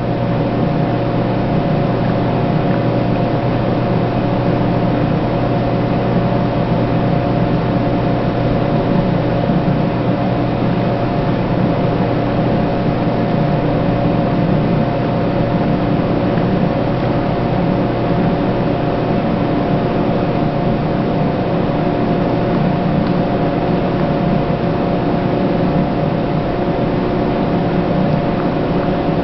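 Steady, unchanging machine hum with a hiss and a few held tones, with no change for the whole stretch.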